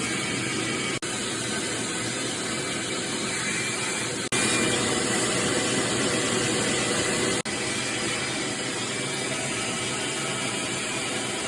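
Shop vac running steadily, sucking dust out of the inside of an opened dryer cabinet. It cuts out for an instant three times and runs a little louder after the second break.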